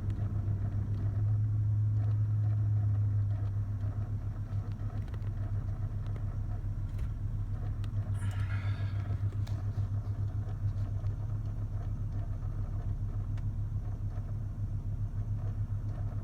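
Low 'mooing' drone from behind the dashboard of a 2000 Lexus GS300, a noise that usually comes with the AC fan running high. It swells for a couple of seconds near the start, then carries on as a rapid flutter, like cogs turning. About halfway through, a brief higher-pitched sound cuts across it.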